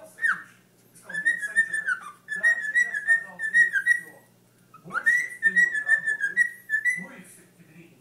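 Cockatiel whistling its song: a short falling whistle, then two warbling phrases held near one high pitch, with a pause of about a second between them.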